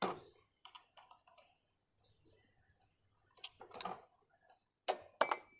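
Scattered light metallic clicks and taps of the RX-100's gear selector lever being worked off its shaft, with the loudest clicks near the end.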